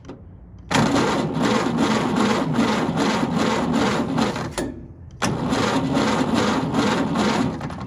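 1931 Ford Model A's four-cylinder flathead engine being cranked by its electric starter in two tries, about four seconds and then about two and a half, each an even rhythmic chugging. The engine does not catch, which the owner traces to ignition timing a little off.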